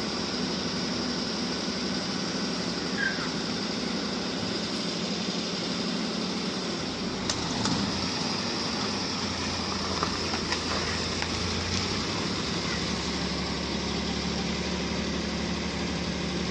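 Suzuki Mehran's small three-cylinder petrol engine running at low idle as the car creeps slowly, with a deeper hum coming in about halfway through and a few faint clicks.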